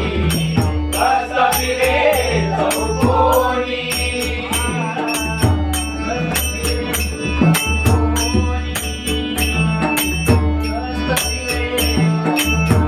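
Marathi devotional bhajan music: pakhawaj drum and metallic percussion keep a fast, steady rhythm under sustained accompanying tones, with a singer's voice in the first few seconds.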